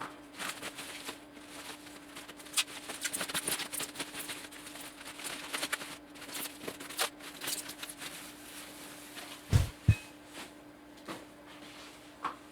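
Guitar packaging being handled and opened: a run of rustling and crackling, with two dull thumps near the end, over a faint steady hum.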